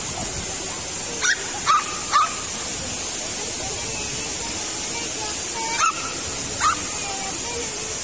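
A dog barking in short, sharp yaps: three in quick succession about a second in, then two more around six seconds in. The steady rush of a waterfall runs underneath.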